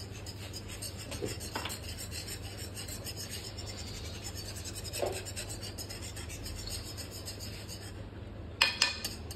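Wire whisk scraping rapidly and steadily against the bottom of a metal kadai as it stirs thick white sauce, with a couple of sharper clinks near the end.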